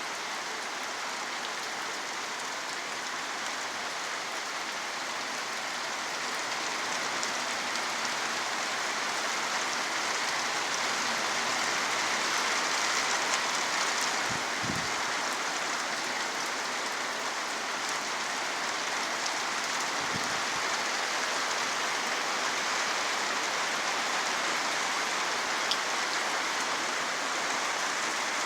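Steady rain falling, a dense even hiss that grows a little louder about six seconds in. Two faint low thuds come through partway along.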